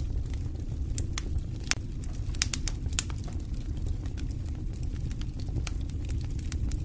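Fire in a fireplace burning steadily, with a low rumble under scattered sharp crackles and pops, several close together about two and a half to three seconds in.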